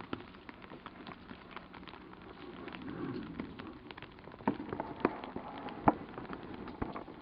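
Rain falling steadily, with scattered drops tapping close by; a few louder taps come about four and a half to six seconds in.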